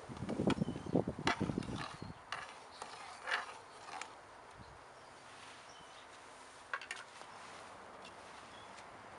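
Slotted metal spatula stirring and scraping around a large metal stockpot of hot spiced water for about two seconds, followed by a few scattered metallic clinks. Near the end a glass lid clinks down onto the pot.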